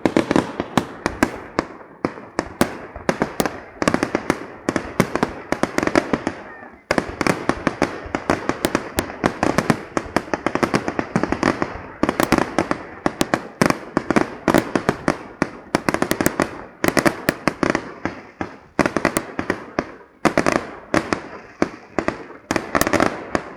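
Fireworks display: a dense, continuous barrage of sharp bangs and crackles, several a second, with a brief lull about seven seconds in.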